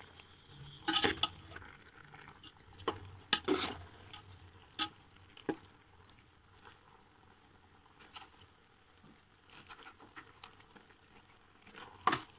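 Metal spoon scraping and clinking against a cooking pot as boiled rice is gently folded from the bottom up through the chicken masala for biryani. Irregular clinks and scrapes, busiest in the first half, with a quiet stretch in the middle.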